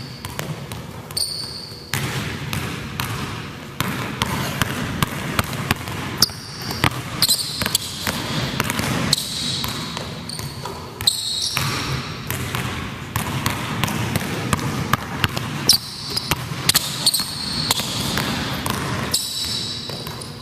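A basketball bouncing on a hardwood gym floor during dribbling and shooting drills: many short, sharp impacts at irregular intervals.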